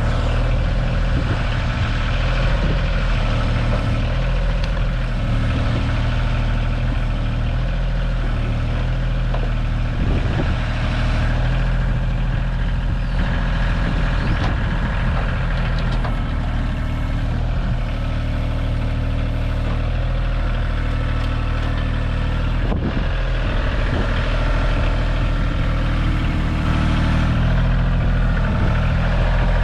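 Kioti tractor's diesel engine running steadily while working the backhoe, with a few sharp knocks.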